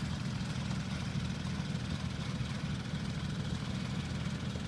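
Off-road SUV engine idling, a steady low rumble.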